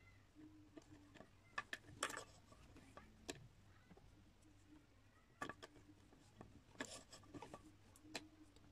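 Quiet handling of 3 mm macramé cord as square knots are tied by hand: faint rubbing of the cord with several sharp clicks scattered through.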